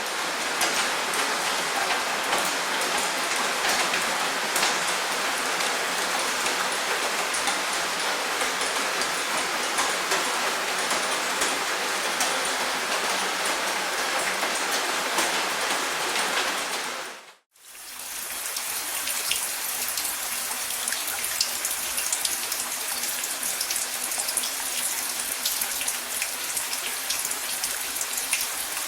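Steady rain, a dense patter of drops with many small individual ticks. About two-thirds of the way through it fades out briefly, and a different, brighter and hissier rain fades in and runs on.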